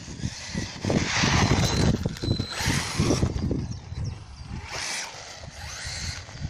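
Electric RC short course truck driving in bursts on concrete, its motor whining and tyres scrubbing. There is one long run about a second in and two short bursts near the end, over a low rumble.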